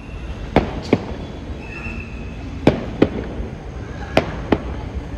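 Sharp bangs in pairs, the two a third of a second apart, three pairs about a second and a half apart, over a steady low background rumble.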